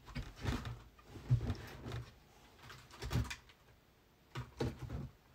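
Hands rummaging through a shipping box of packaged items: a scattering of light knocks and rustles, several seconds apart.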